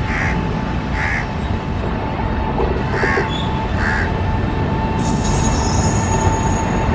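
Train running slowly: a steady low rumble with a steady whine, from a WAP-7 electric locomotive shunting empty passenger coaches. Crows caw four times over the first four seconds. A thin, high-pitched squeal joins about five seconds in.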